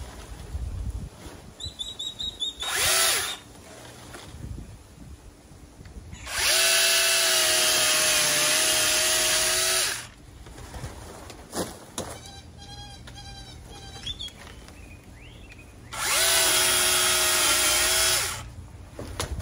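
Battery-powered cordless mini chainsaw cutting Mexican fan palm fronds. It runs in three bursts of steady motor whine: a short blip about three seconds in, then two longer cuts of a few seconds each, each spinning up quickly as the trigger is pressed.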